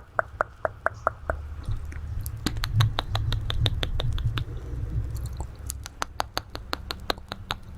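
ASMR mouth sounds: short mouth clicks close to the microphone, about five a second at first, then a sparser run of sharper, higher clicks over a low rumble.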